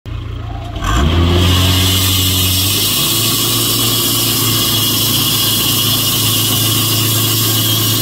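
Wood-Mizer LT70 sawmill's Kubota 57 horsepower petrol engine revving up about a second in, then running steadily under load as the band blade cuts into a log, with a high hiss over the engine note.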